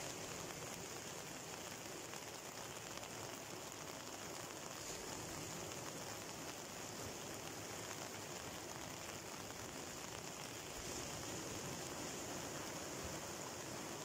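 Rough sea breaking and washing onto a beach in the rain: a steady, even hiss of surf and rain with no separate crashes standing out.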